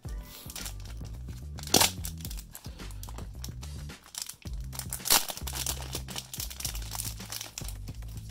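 Background music, over which a trading-card pack's wrapper crinkles and tears, with two louder crackles about two and five seconds in.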